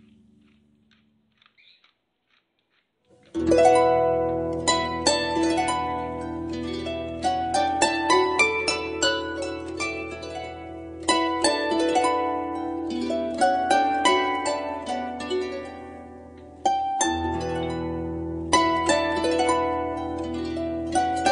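Background harp music: plucked notes over a steady low bass, coming in about three seconds in after a nearly silent start, with a fresh phrase striking up near the end.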